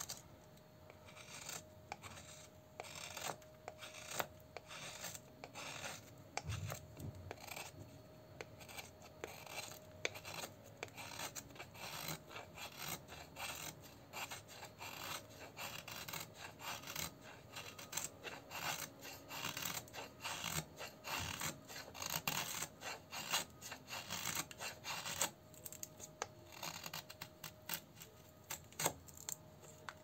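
A steel knife blade shaving thin curls off a wooden stick: a steady run of short scraping strokes that stops at the very end.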